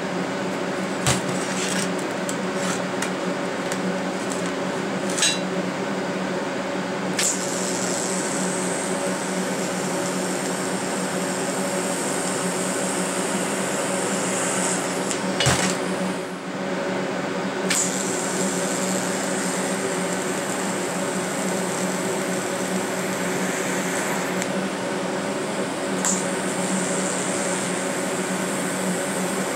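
TIG welding arc fusing the seams of steel brake brackets in short runs: each run starts with a sharp click as the arc strikes and goes on as a steady high hiss, stopping and restarting a few times. A steady hum runs underneath.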